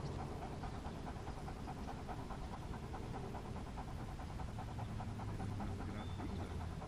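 A Dobermann panting fast and evenly, heard close up from a camera harness on its back.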